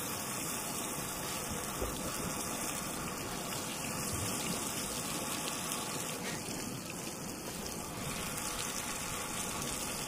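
Salmon fillets frying in a pan on a gas camp stove, a steady sizzle and burner hiss, with wind buffeting the microphone. One light knock about two seconds in.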